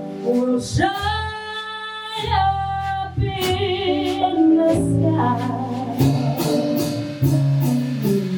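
Live jazz ensemble playing a slow ballad: a long held melody note with vibrato over bass, piano and regular cymbal strokes.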